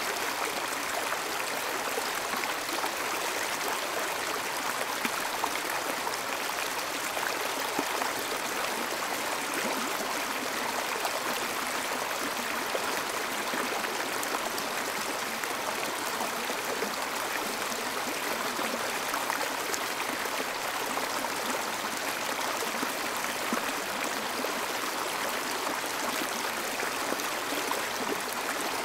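Steady flowing water, an even rushing without breaks or changes.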